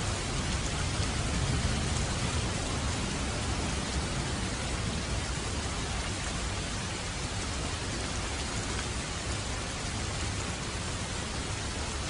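Steady rain falling on surfaces: a dense, even hiss of drops with no breaks.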